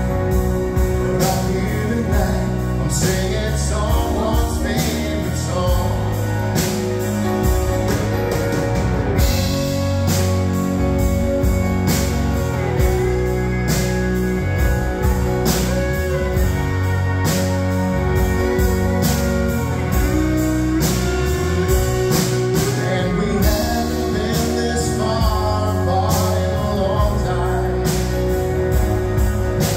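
Live rock band playing a song: electric guitars over bass and a steady drum beat, with singing.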